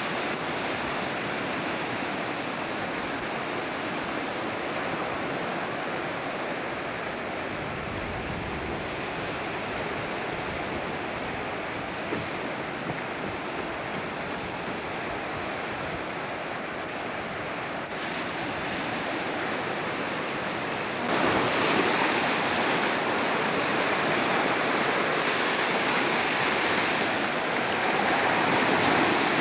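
Ocean surf washing against the shore, mixed with wind buffeting the microphone: a steady rushing noise that suddenly gets louder about two-thirds of the way through.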